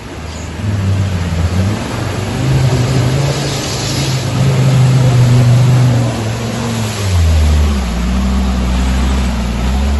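Troller 4x4's engine revving hard as it ploughs through deep mud and water, with muddy water splashing off the tyres. The revs climb and hold, then drop to a lower note about seven seconds in.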